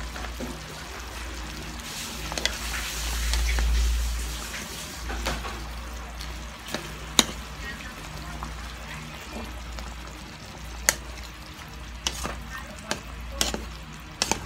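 Chicken and mushroom stew sizzling in a frying pan as it is stirred with a wooden spatula. The spatula gives sharp knocks against the pan, once about seven seconds in, again near eleven seconds, and several times near the end.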